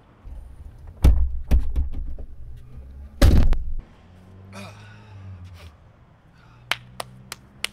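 A Jeep Wrangler's rear glass hatch and spare-tyre swing gate being shut. There are two heavy thuds just after a second in, then a louder slam about three seconds in. A few short sharp clicks follow near the end.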